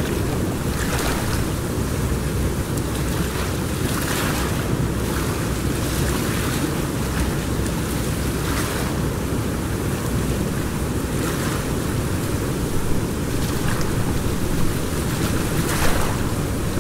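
River water rushing steadily, with wind on the microphone and a few brief louder surges.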